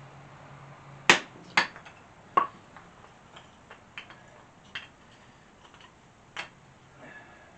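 Fatwood being split into chunks: three sharp wooden knocks in quick succession, then lighter clicks and taps, with one more knock near the end.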